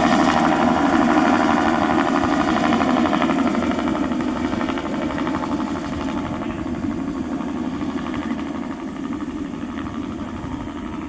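Bell 206B-3 JetRanger III helicopter running, its turboshaft engine and rotor blades giving a steady fast beat, growing steadily fainter.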